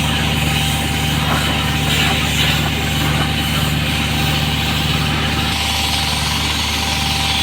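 An engine running steadily at idle, a low even hum, with a constant rushing hiss over it.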